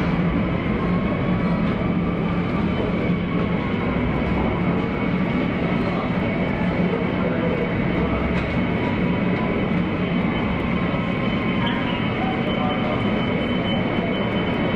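Twin rear-mounted turbofan engines of a Bombardier CRJ-700 regional jet running at taxi idle, a steady jet whine over a low rumble as the aircraft taxis.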